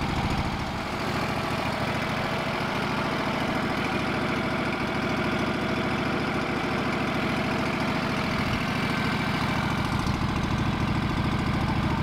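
Wood-Mizer LT15 portable sawmill's engine running steadily with no change in speed or load.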